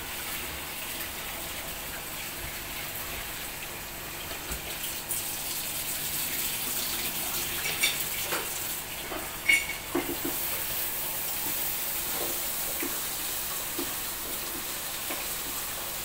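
Steady hiss of running water, like a tap running, with a few brief knocks about eight and ten seconds in.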